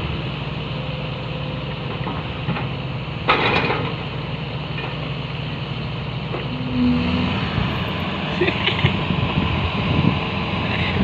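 Kobelco SK130 excavator's diesel engine running steadily, with a brief clatter about three seconds in and a short tone just before seven seconds.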